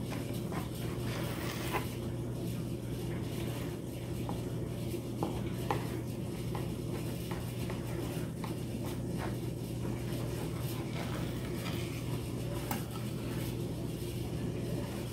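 Knife slicing through a loaf of quick bread on a plastic cutting board: soft scraping of the blade with scattered light taps and clicks on the board, over a steady low hum.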